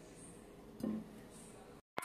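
Faint room tone with one brief, short sound about a second in, then the audio drops out to complete silence for a moment near the end.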